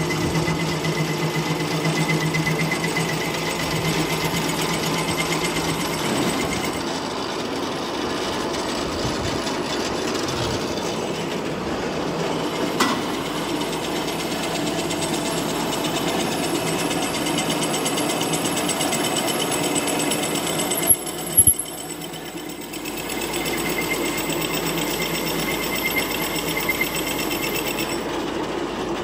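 Metal-working centre lathe running, its motor and gearing giving a steady mechanical noise with a thin whine. A single click near the middle, and two sharp knocks about two-thirds through, after which the running noise briefly drops before picking up again.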